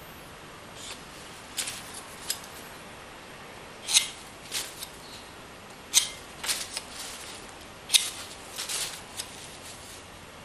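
Metal palette knife working thick acrylic paint: a series of short scraping strokes, with three sharper clicks about two seconds apart.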